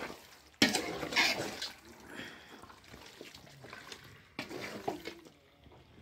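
A metal spoon stirs raw chicken pieces in thick wet masala in a large metal pot, making wet squelching and sloshing. There are two spells: a louder one that starts suddenly about half a second in, and a shorter one about four and a half seconds in.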